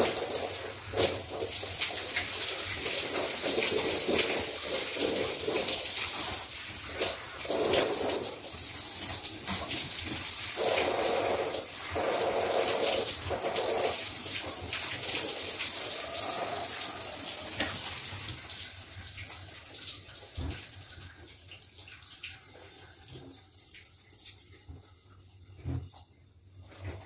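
Shower spray running and splashing on hair and body, a steady hiss with uneven splashes. It fades out about two-thirds of the way through, leaving a few small knocks and drips.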